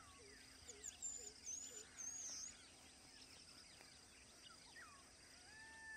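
Faint wild birds calling: short high whistles and chirps in the first couple of seconds, and a longer gliding whistle near the end, over a faint steady insect trill.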